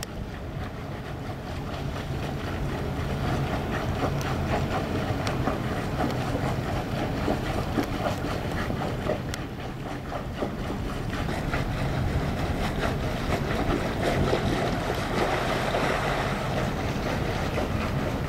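Twin Yanmar diesel inboard engines of a 1998 Luhrs 36 sport fisher running steadily at slow harbor speed, with wind on the microphone; the engine and water noise grow a little louder in the second half.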